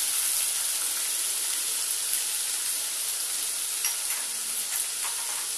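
Cumin and green chilli paste sizzling as it fries in hot mustard oil in a pan: a steady hiss with a few faint pops.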